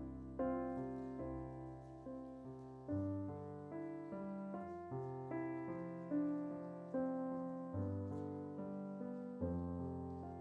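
Solo piano playing slow, soft chords, a new chord struck about once a second and left to ring.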